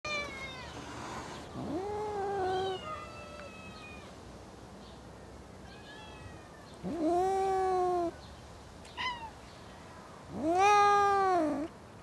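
Angry cats yowling at each other. There are three long drawn-out yowls, each about a second long, that rise, hold and drop: one near two seconds in, one around seven seconds and a loudest one near the end. Shorter, higher cries fall between them, and one of them overlaps the first yowl.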